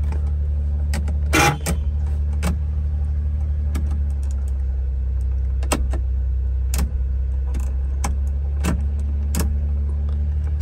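1993 Suzuki Carry mini truck's small three-cylinder engine idling steadily, heard from inside the cab, while the turn-signal stalk and dash switches are tried, giving scattered sharp clicks and one louder clatter about a second and a half in. The turn signals are not working.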